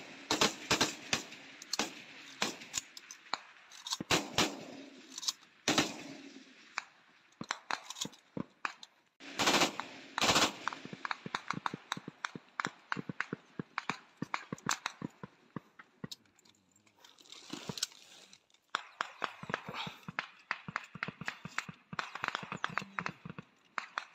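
Rifle fire in a firefight: many sharp shots, some single and some in rapid bursts, with a loud cluster about ten seconds in and a fast run of shots near the end, and fainter shots in between.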